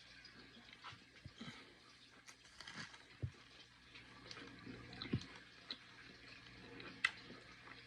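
Faint wet chewing and smacking of someone eating a sauce-covered buffalo chicken egg roll, with scattered mouth clicks and a few soft knocks.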